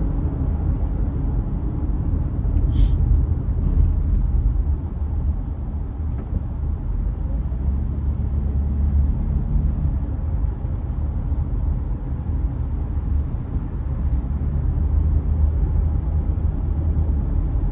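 Steady low rumble of a car being driven, from engine and road noise heard inside the cabin, with a couple of brief ticks.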